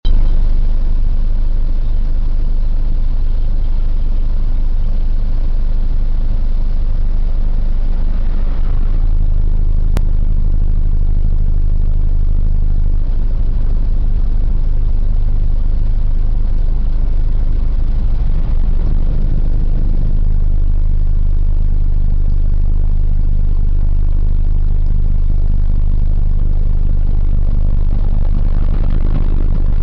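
An engine idling steadily, a low, even hum whose pitch shifts slightly a few times, with a single click about ten seconds in.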